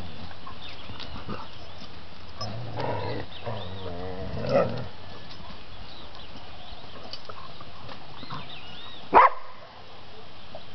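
Dogs at play, one giving a low, drawn-out growl a little over two seconds in and a shorter, louder vocal sound around four and a half seconds. A single sharp knock comes a bit after nine seconds.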